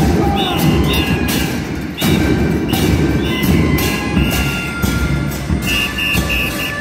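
Murga drum section: bombos (bass drums) with cymbals mounted on top, pounding a fast, dense beat with frequent cymbal crashes. Short, sharp high whistle notes repeat over the drumming.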